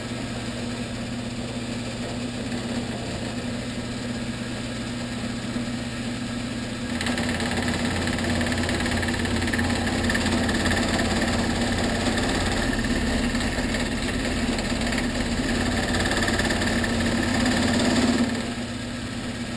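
Vertical milling machine running with a steady motor hum. About seven seconds in it gets louder and rougher as the cutter bites into the metal workpiece, and it eases back to the plain running hum near the end.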